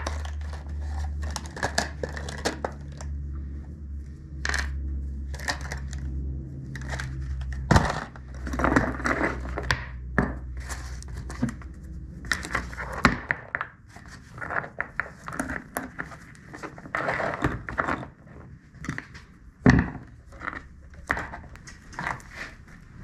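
Clinks, rattles and knocks of a chainsaw's bar and chain being handled while the chain is changed, over a steady low hum that stops about halfway through.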